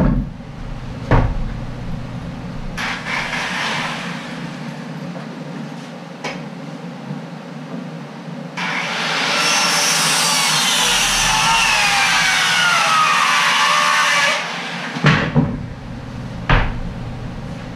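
A power saw cuts through framing lumber for about six seconds in the middle, its high whine falling slowly in pitch as the blade works through the wood. Sharp wooden knocks come before and after.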